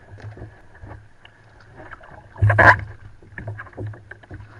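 Water sloshing and knocking against a plastic sit-on-top kayak's hull as the paddler climbs out into shallow water, heard through a camera fixed to the kayak. There are irregular knocks throughout and one loud splash and thump about two and a half seconds in.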